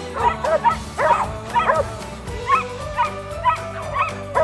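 Dogs barking in quick short barks, about three a second, over background music.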